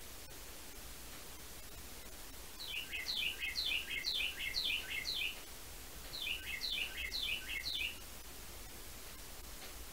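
A songbird singing: two runs of quick, repeated down-slurred chirping phrases, the first about two and a half seconds in and the second about six seconds in, over a faint steady hiss.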